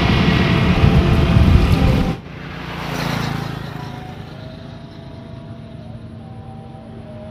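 A motor vehicle passing on the road close by, loud engine and tyre noise that cuts off suddenly about two seconds in. After that, a quieter steady traffic hum, with a more distant vehicle swelling and fading.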